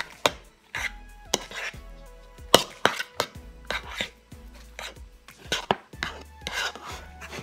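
A metal utensil clinking and scraping against a bowl while stirring pasta in sauce, in irregular knocks about two a second.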